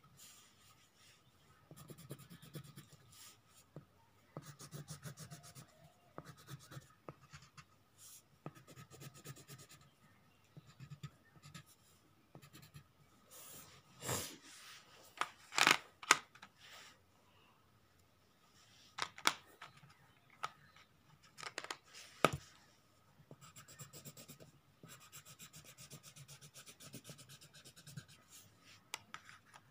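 Coloured pencil shading on paper over a drawing board: quick back-and-forth scratching strokes in bursts, with a few louder strokes about halfway through.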